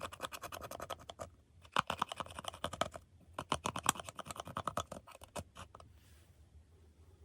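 Slime being squished and worked by hand, giving rapid runs of sticky clicks and pops in three bursts that stop about five and a half seconds in.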